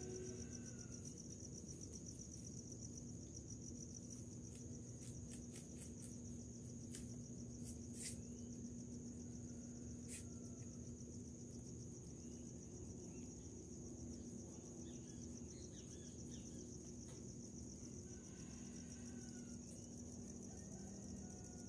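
Crickets chirping in a steady high trill, with a low steady hum beneath and a handful of sharp clicks around the middle.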